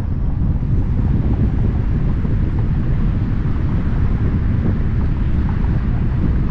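Wind buffeting the microphone: a loud, steady low rumble with no voices.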